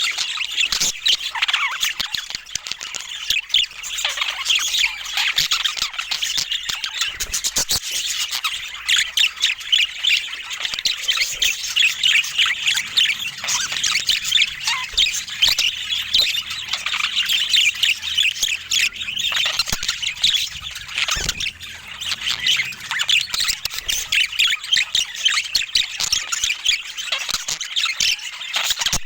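Budgerigars chattering and chirping continuously, many quick overlapping calls with occasional squawks.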